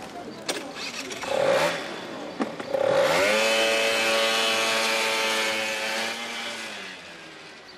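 Small moped engine pulling away: its pitch rises about three seconds in, holds steady, then fades as the moped rides off.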